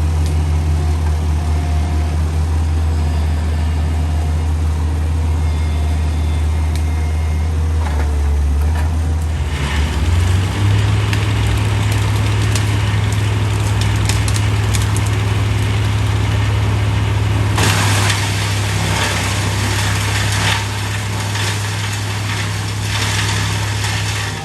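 A vehicle engine running steadily at idle, its note stepping up in pitch about ten seconds in, with a hissing noise rising over it in the second half.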